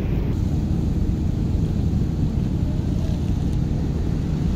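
Wind buffeting the microphone: a steady, uneven low rumble with no distinct events.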